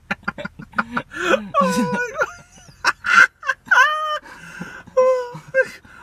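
People laughing hysterically: a quick run of short staccato bursts, then high-pitched squealing, wheezing laughs in several breaths.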